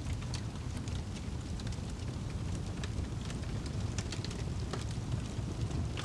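Wood fire crackling in a fireplace: irregular sharp snaps and pops over a steady low rumble.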